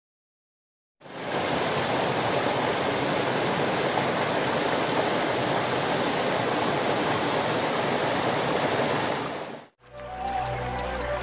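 Water rushing over the rocks of a small cascade in a shallow boulder stream: a steady, even rush that starts about a second in and cuts off abruptly near the end.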